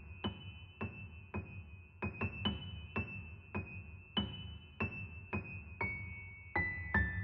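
Instrumental keyboard music: high notes struck about twice a second over a low sustained bass, the melody moving to new notes near the end.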